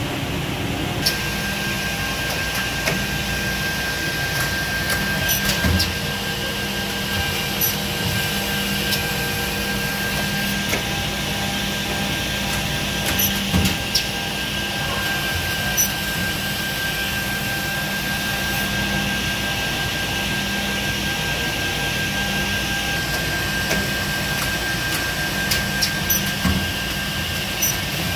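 Giben automatic edge banding machine running: a steady motor hum with a whine that sets in about a second in, and scattered sharp clicks and knocks from its working units.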